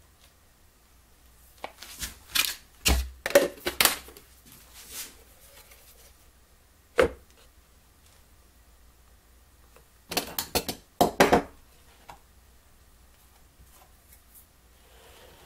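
Plywood parts and tools handled on a wooden workbench while the receiver is fitted onto its glued base plate: bursts of rapid clattering knocks about two seconds in and again about ten seconds in, with a single knock in between.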